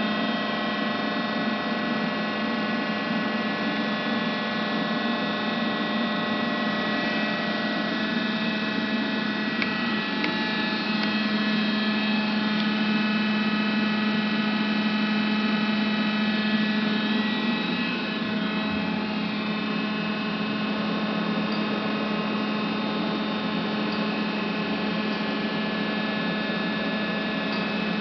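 TOS SUA 125 CNC heavy lathe running: a steady machine hum and whine made of several steady tones, a little louder through the middle.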